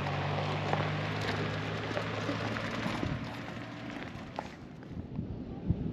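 A vehicle engine running with a low steady hum, fading away about four seconds in, over a steady rushing hiss.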